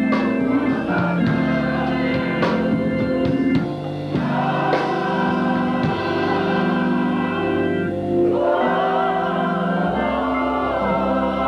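Gospel choir singing held chords in many voices, moving to a new chord about every four seconds.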